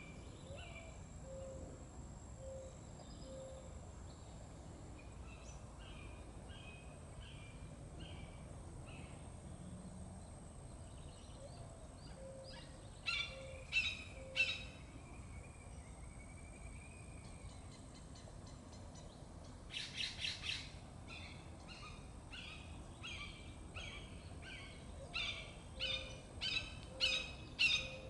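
Birds calling in streamside woodland: series of repeated high chirping notes, louder in a burst about halfway through and again near the end, with a short rapid trill about two-thirds of the way in. Soft low notes in groups of three repeat now and then beneath them.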